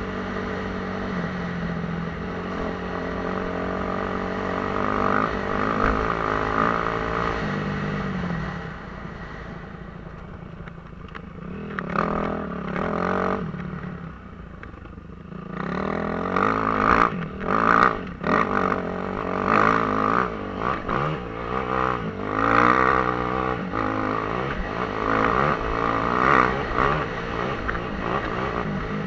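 Suzuki RM-Z250's single-cylinder four-stroke engine ridden off-road, heard close from the rider's helmet. Held at steady throttle at first, it drops back to a low, quieter note for several seconds about eight seconds in, then from about sixteen seconds revs hard, rising and falling in pitch as the throttle is worked.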